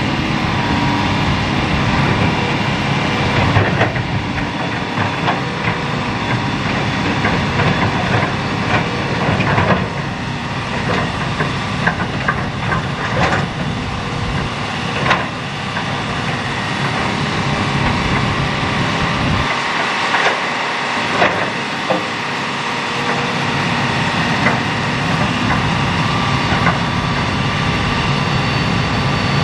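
Hitachi hydraulic excavator's diesel engine running steadily under load, with scattered knocks and clatter of stones as the bucket digs and dumps sand-and-gravel fill.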